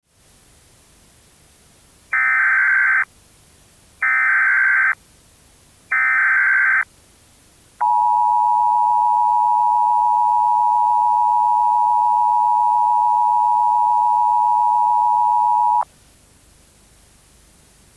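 Emergency Alert System header: three one-second bursts of digital SAME data tones, then the steady two-tone EAS attention signal lasting about eight seconds and cutting off abruptly, over a faint hiss.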